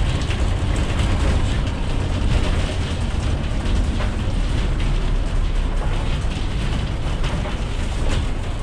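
Cabin of a moving city bus: a steady low rumble from the bus running over the road, with light rattling from the body and fittings.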